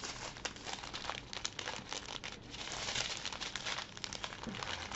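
Small plastic bags of diamond-painting drills crinkling continuously as they are handled and folded back into their packaging.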